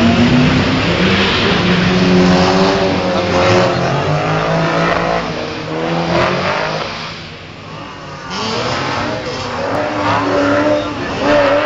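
Drift cars' engines revving hard on a wet track, the revs climbing and dropping again and again as the cars slide through the turns.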